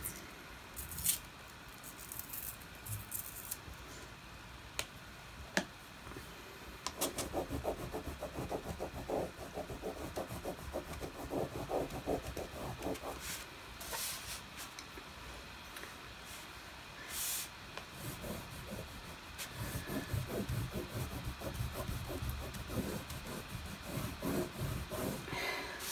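Wax crayon rubbed back and forth on thick paper in quick strokes, colouring in a broad patch. The first several seconds hold only a few light clicks and taps before the steady scribbling begins.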